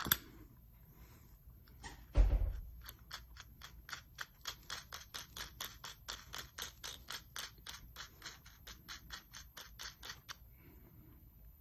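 A thump, then a steady run of light metallic clicks, about four a second for some seven seconds, as a metal standoff cap is turned by hand on its barrel.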